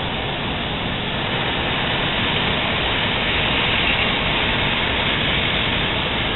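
Messer Griesheim Statosec P6500 CNC cutting machine's five oxy-fuel torches cutting steel plate: a steady hiss of the gas jets, growing slightly louder about two seconds in.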